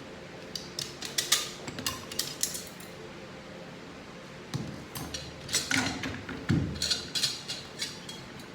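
Metal parts of a 6HP21 automatic transmission clinking and knocking as they are handled and pulled apart on the bench, in two bursts of sharp clicks. A steady fan hum runs underneath.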